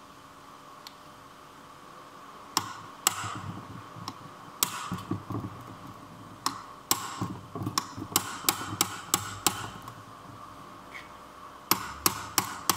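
A hammer strikes a brass drift held against the shaft and gear end of a Peugeot/Citroën manual gearbox: a run of sharp, ringing metallic blows. It starts about two and a half seconds in, with a quick flurry of strikes in the middle and a few more near the end. The gearbox is being dismantled to replace a bearing that made a noise while driving.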